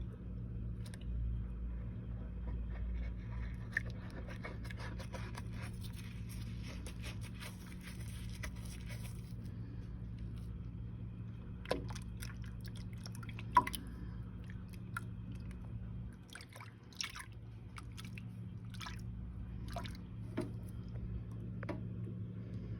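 Bath bomb fizzing as it dissolves in water. A dense fine crackle is busiest from a few seconds in to about halfway, then thins to scattered pops and clicks. A steady low hum runs underneath.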